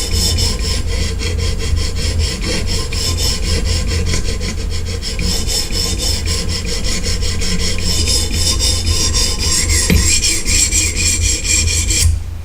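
Diamond sharpening stone on a Hapstone K1 guided system stroked back and forth along a CTS-204P steel knife edge: a steady rasping scrape in even, repeated strokes. The strokes stop just before the end.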